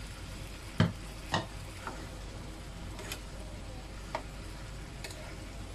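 Wooden spatula stirring and tossing vegetables in a hot frying pan over a steady sizzle, with several sharp, irregular knocks of the spatula against the pan, the loudest about a second in.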